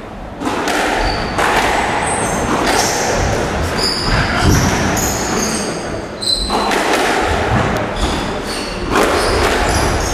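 Squash rally: the ball thudding off the walls and racket, with players' court shoes squeaking in short high chirps on the court floor.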